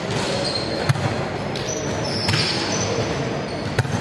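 Sharp smacks of a volleyball being hit, about a second in and again near the end, ringing out in a large indoor sports hall over a steady background of players' voices.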